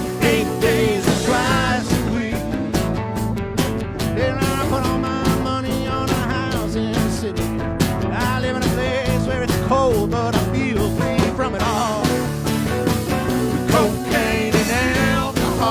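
A band playing an Americana rock song: a steady drum beat and bass under a wavering lead melody line.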